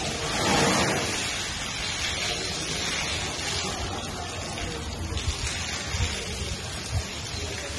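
Water from a garden hose held in an elephant's trunk splashing steadily onto the elephant and the wet floor, a rain-like spatter, with a few brief low thuds in the second half.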